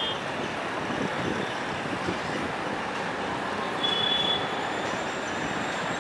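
Airbus A320 jet engines on final approach: a steady rumbling hiss with a brief thin high whine about four seconds in.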